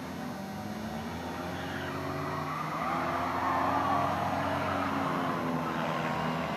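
Skid plate race cars running, their engines droning under a screeching scrape of the metal skid plates dragging on the asphalt. The scrape swells and grows louder a few seconds in.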